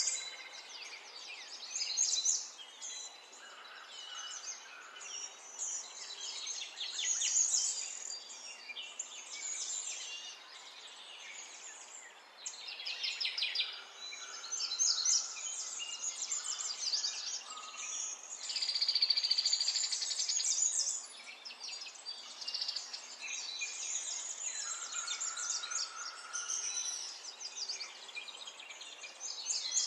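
Birds singing: many overlapping chirps and rapid trills, continuous and at a moderate level.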